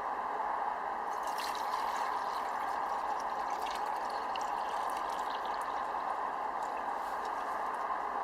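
Steady rushing, hissing water sound, with scattered faint ticks over it.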